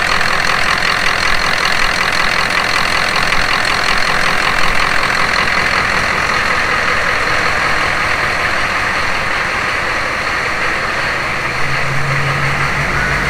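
Turbocharged GM 6.5-litre V8 diesel in a Humvee idling steadily with diesel clatter, running for the first time after being swapped in. A lower steady hum joins near the end.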